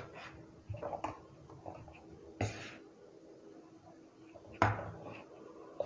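A few soft, brief knocks and taps of a spoon and whisk against a plastic mixing bowl as spoonfuls of dry flour mix are tipped into the batter, the loudest about halfway through.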